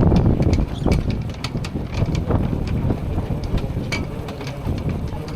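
Wind buffeting the microphone in a low rumble, strongest at the start and easing a little, with many scattered, irregular light ticks of rain.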